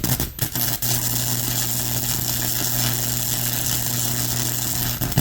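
Electric welding arc crackling and sizzling in one steady burn of about five seconds, breaking off briefly just after it starts, over the welder's steady low hum.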